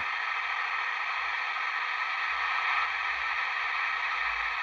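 Sony ICF-2001D receiver giving steady static hiss through its speaker while it scans the airband, with no transmission heard on any channel.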